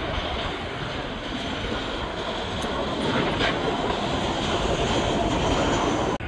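Jet engines of a Boeing 737 airliner on final approach with landing gear down: a steady rumbling rush that grows louder about three seconds in, then cuts off suddenly near the end.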